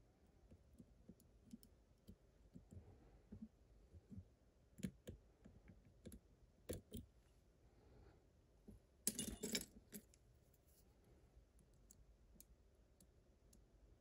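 Faint clicks and scrapes of steel lock picks working the pins inside an Abus TS5000 lock cylinder, with a short, louder metallic clatter about nine seconds in as one pick is put down and another taken up among metal tools.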